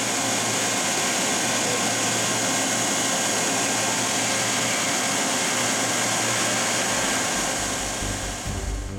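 Spindle of a Clausing Storm VMC1020SF vertical machining center (20 HP, CAT 40) running free at 10,000 RPM: a steady high whine over a rushing hiss. It fades near the end as music comes in.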